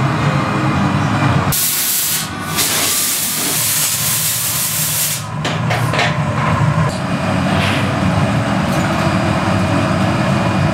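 Steady roar of glassblowing furnace and glory-hole burners. About a second and a half in, a loud hiss takes over for roughly four seconds, then the steady roar returns.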